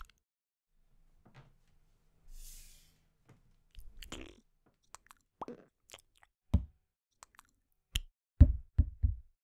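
Soft squishy and tapping foley sounds of modelling clay being handled and pressed onto a wooden cutting board. Near the end come several dull, heavier thumps as a tomato drops and bounces on the board.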